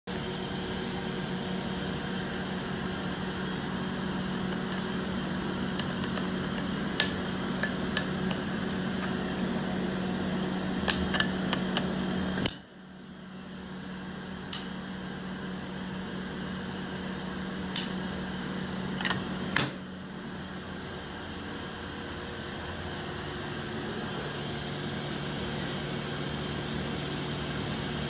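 Steady hum of basement machinery with a low drone. Over it come scattered metallic clicks and knocks as a fire alarm pull station is opened and worked with a screwdriver. The alarm itself is not yet sounding.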